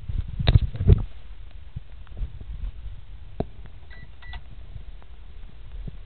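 A few knocks and thumps in the first second, then a microwave oven beeping twice, two short high beeps close together.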